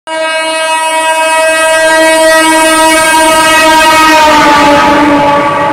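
Passing train locomotive sounding its horn in one long unbroken blast at speed. The horn's pitch drops about four seconds in as the locomotive goes by, and the rush of the train grows under it.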